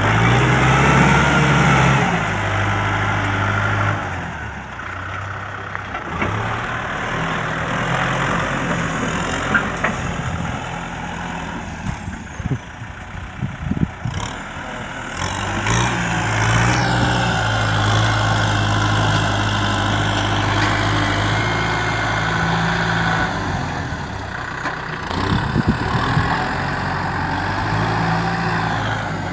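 Kubota tractor's diesel engine working under load as its front dozer blade pushes soil, the engine note rising and easing off several times. A few short knocks sound near the middle and again near the end.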